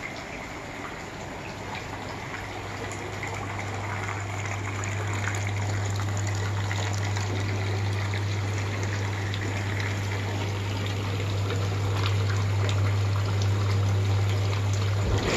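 Arizona Basic garden hot tub running: water churning and gushing over a steady low hum from its pump, growing gradually louder.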